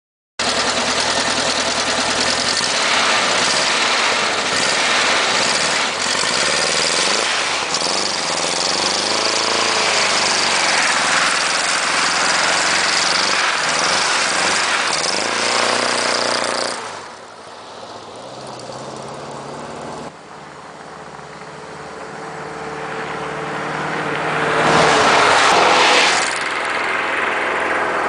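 VW bay-window bus engine revved hard in a burnout, the revs rising and falling as the rear wheels spin on ice. About two thirds of the way through it drops quieter, then swells loud again for a couple of seconds as the bus pulls away.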